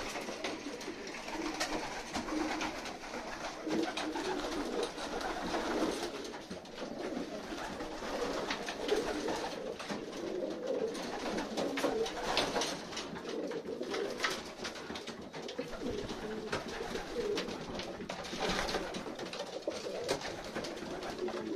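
Racing pigeons, widowhood cocks in their loft nest boxes, cooing continuously, several birds overlapping, with scattered short clicks among them.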